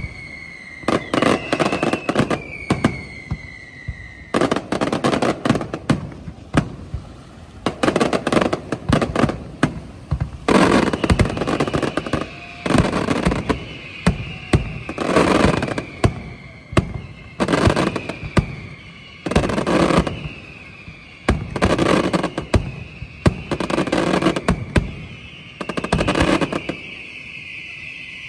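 Fireworks display (castillo): volleys of sharp bangs and crackling reports come every second or two. High whistles fall slowly in pitch over them, and the volleys stop about two seconds before the end.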